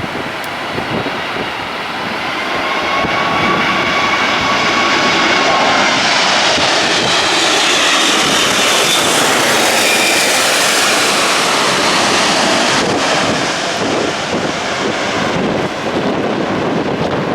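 Jet airliner going around at high engine thrust in a strong wind. Its engine noise builds over a few seconds, holds loud with whining tones that slide in pitch as it passes, then eases, with gusty wind buffeting the microphone near the end.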